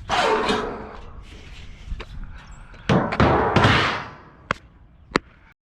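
Thuds and knocks of junk being handled and moved: a loud thud at the start, a longer burst of banging and scraping about three seconds in, then two sharp knocks near the end.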